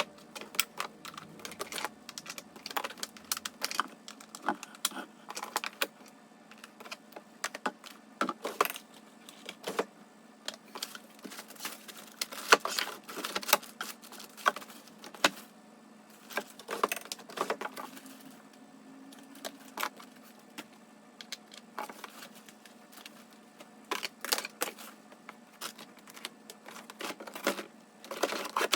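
Irregular clicks and clatter of small hard objects being picked up and set down, with louder knocks here and there.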